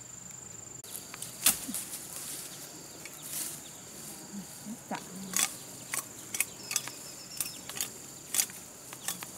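Machete striking and cutting thin green shrub stems: an irregular series of about a dozen sharp cracks, with leaves rustling, the loudest about a second and a half in. Insects keep up a steady high buzz behind it.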